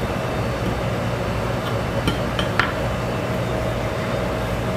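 Steady background hum with a faint constant tone, and a few light clinks of dishes about two seconds in.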